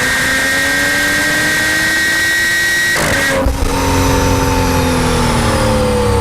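BMW 335i's turbocharged N55 straight-six with an M Performance exhaust, with a high-pitched screech held over the exhaust note as the engine pulls up in revs. About three seconds in the note breaks, then falls slowly with a deeper rumble. The owner wonders whether the screech is just turbo spool.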